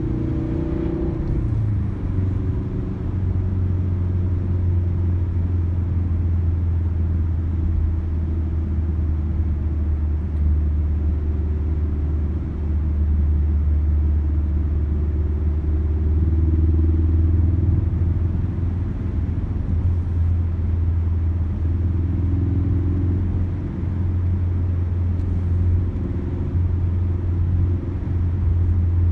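Ford Focus RS's turbocharged four-cylinder engine droning steadily at a light cruise with tyre and road noise, heard from inside the cabin. The engine note drifts slightly up and down with the throttle.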